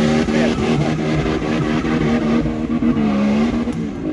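Off-road 4x4 engine revving hard, its pitch rising and falling as the throttle is worked, with a brief drop in revs near the end.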